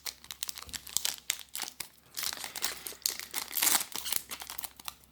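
Foil Pokémon booster-pack wrapper crinkling as it is handled, a run of irregular crackles.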